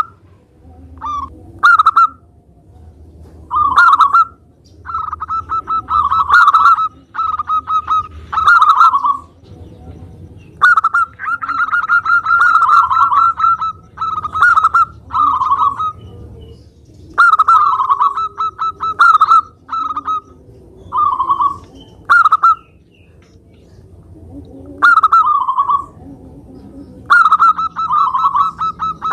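Zebra dove (perkutut) cooing in full song: repeated bouts of quick, stuttering coo notes, some short and some running several seconds, separated by brief pauses.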